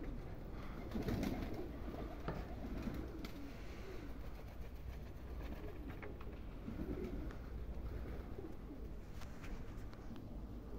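Domestic pigeons cooing, several low coos one after another, with a few faint clicks.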